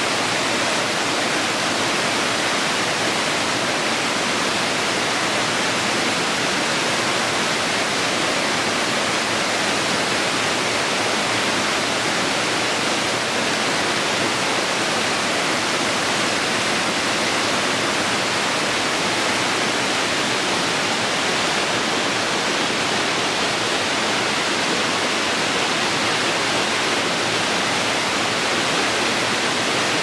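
Small waterfall cascading over rock ledges into shallow pools: a steady, unbroken rush of falling water.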